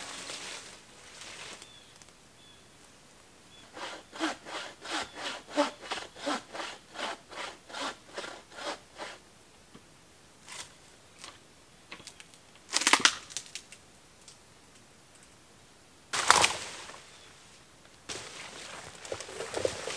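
Bucksaw sawing through dead wood in quick, even strokes, about two and a half a second for some five seconds. Later come two louder cracks of wood breaking, a few seconds apart.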